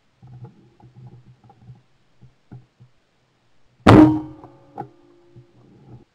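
One shotgun shot about four seconds in, heard very loud and close from a camera mounted on the gun's barrel, followed by a short ringing tail. Faint knocks and clicks come before it, and a sharper knock follows just under a second after the shot.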